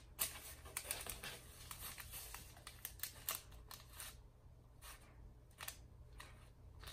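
Faint irregular rustles and light clicks of hands working pizza sauce over dough on a parchment-lined sheet pan. They are thickest in the first four seconds and sparser after.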